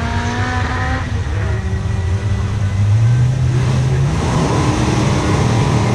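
Drag-racing car engines running hard down the strip. An engine note rises in pitch through the first second. A deeper engine note climbs about three seconds in, then holds as a steady rumble.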